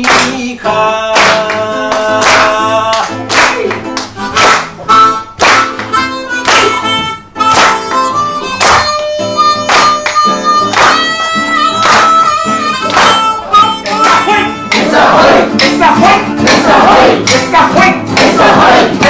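Ten-hole blues harp (harmonica) playing a melody in long held notes over acoustic guitar, with a steady beat of about two strokes a second. About fifteen seconds in, the music turns denser and busier.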